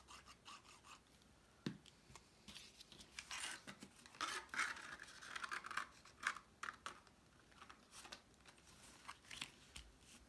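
Faint rustling and scraping of cardstock being handled while glue is put on a tab, with scattered light ticks and a small tap about a second and a half in.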